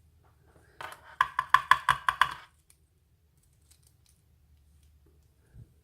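A quick run of about eight small metallic clicks with a light ring, like small lock parts and a tool tapping together while a lock cylinder is taken apart, then a few faint ticks.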